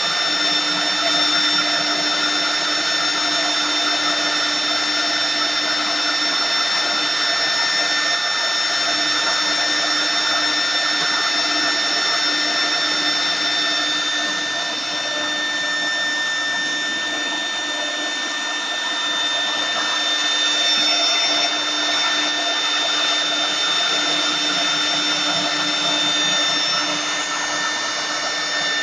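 CNC router spindle carving a wooden column: a steady, high-pitched whine of several tones over the hiss of the cutter in the wood, running without a break.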